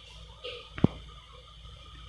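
A single sharp tap or click a little under a second in, over a faint steady low hum.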